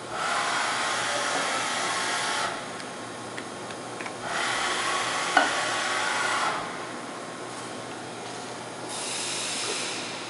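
Fadal 6030 vertical machining center moving its axes in three separate traverses of about two seconds each: a hissing mechanical whine that starts and stops sharply, the third move quieter than the first two.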